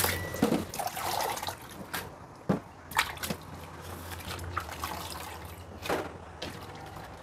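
Tap water running into a plastic bowl of leafy greens in a stainless-steel sink, fading out within the first second or two. Then water drips and trickles from the rinsed vegetables, with a few light knocks as the bowl and leaves are handled on the counter.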